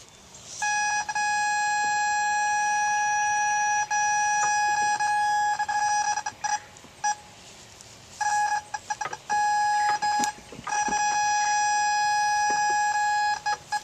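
PregTone electronic pregnancy detector giving a steady, solid electronic tone, held several seconds at a time and broken by a few short gaps and choppy stuttering stretches. It is the solid tone that signals a pregnant doe.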